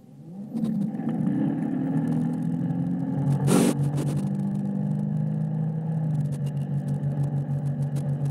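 Ski boat engine opening up from idle to full throttle to pull a slalom water-skier out of the water, its pitch rising over the first second or so, then running steadily at towing speed. A brief loud rush of noise about three and a half seconds in.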